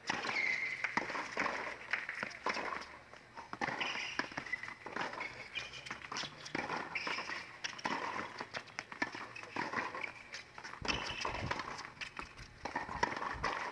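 Tennis rally on a hard court: sharp pops of racket strings striking the ball and the ball bouncing on the court, coming at irregular intervals.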